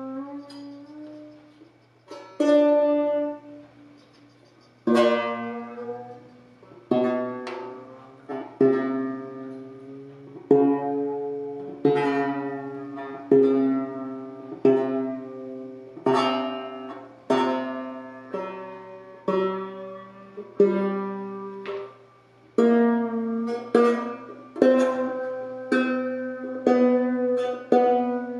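Banjo strings plucked and strummed slowly, a note or chord about every second, each ringing out and fading. The banjo has a newly fitted bridge and has just been tuned.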